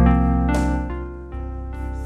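Music: keyboard accompaniment playing held chords, moving to a softer chord about a second and a half in.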